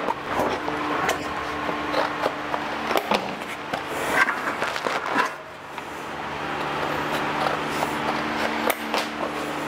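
Cardboard templates being handled and marked against a steel tank: rustling, crackles and taps over a steady low hum that dips briefly about halfway through.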